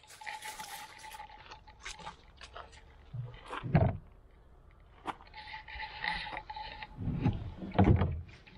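Metal latches and fittings on the wooden drop-side of an old tipping trailer being worked by hand: scattered clicks and scrapes, with two heavier knocks, one about four seconds in and one near the end.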